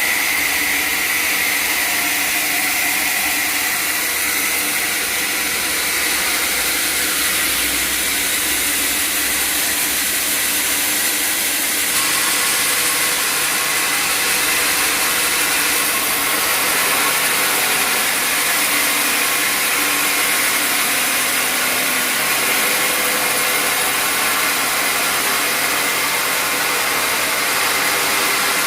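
Sawmill saw running and cutting through a log, a steady high-pitched mechanical noise whose character changes abruptly about twelve seconds in.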